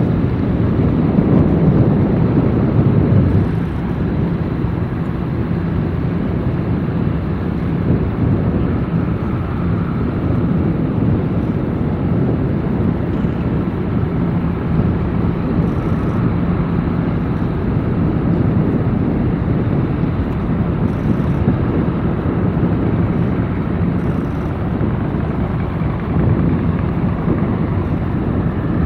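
Wind buffeting the microphone as a loud, low rumble, strongest in the first few seconds, over a faint steady low engine drone from boats on the water.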